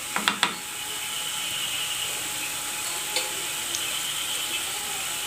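Chopped onions frying in oil in a non-stick kadai over a medium flame, a steady even sizzle. A few light clicks near the start as the spoon adding turmeric powder touches the pan.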